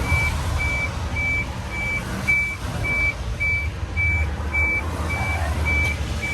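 Electronic warning beeper sounding a steady high beep, repeating about twice a second, over the low steady rumble of a truck engine running.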